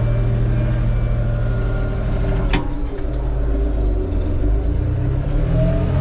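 John Deere 5075M tractor's diesel engine running steadily, heard from inside the cab, with one sharp click about two and a half seconds in; the engine note shifts slightly after it and again near the end.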